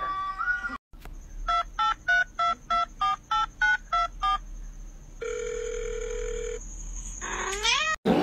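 Touch-tone telephone keypad beeps: ten quick two-note tones, about three a second. They are followed by a steady tone lasting over a second and a short rising sound near the end.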